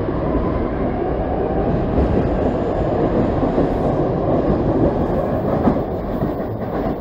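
SEPTA Market-Frankford Line train departing, the cars rumbling and clattering past on the rails as they pick up speed, easing off near the end as the last car moves away.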